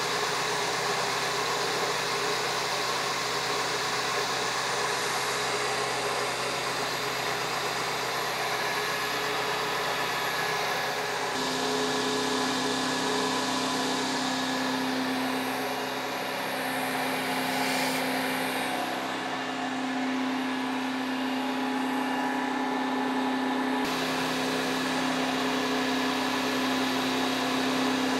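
Milling machine slowly feeding a high-speed steel T-slot end mill through a cast-iron table, cutting dry with an air blast on the cutter: a steady machine-and-cutting noise with hiss. A steady low hum joins about eleven seconds in.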